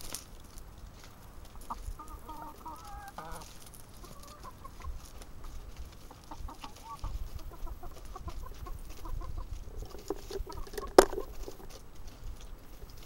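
A flock of brown laying hens clucking in short, repeated calls while they peck at greens. A single sharp knock sounds about eleven seconds in.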